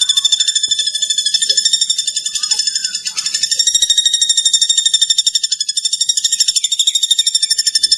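High-pitched, rapidly pulsing trill of the platuk bawang (common flameback woodpecker), layered into a dense, continuous chatter with a thin steady tone beneath it. It dips briefly a few seconds in.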